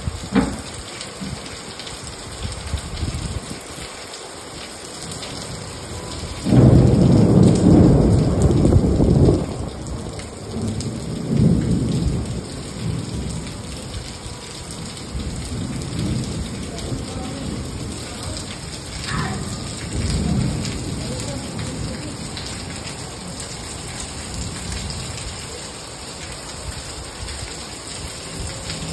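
Steady rain falling, with thunder: a loud low rumble begins about six seconds in and lasts about three seconds, followed by weaker rumbles.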